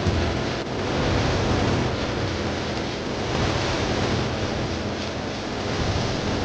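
Steady rushing noise with a low hum beneath it: a whooshing sound-effect bed.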